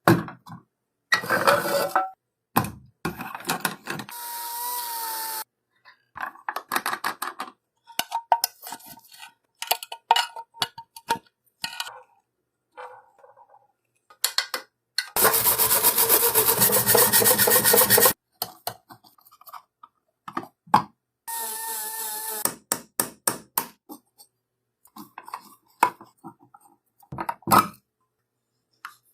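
A string of short, separate workshop tool sounds (scraping, rubbing, sawing), cut one after another. Midway comes a louder continuous stretch of about three seconds.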